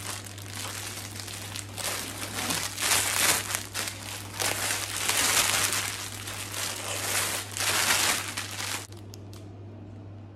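Clear plastic wrapping on packs of braiding hair crinkling and rustling in bursts as the packs are handled, stopping about nine seconds in.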